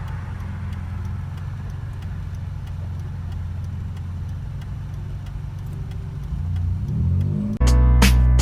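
Mazda RX-8's rotary engine running under way with a steady low drone inside the cabin, rising in pitch as the car accelerates near the end. Loud background music with a beat cuts in about seven and a half seconds in.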